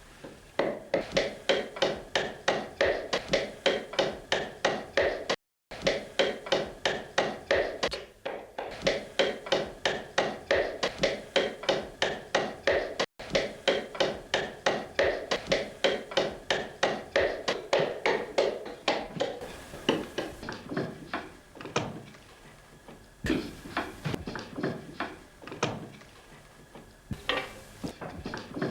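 Short-handled axe chopping into wood in quick, regular blows, about four a second, trimming excess wood away; the blows thin out to scattered single strikes in the last third.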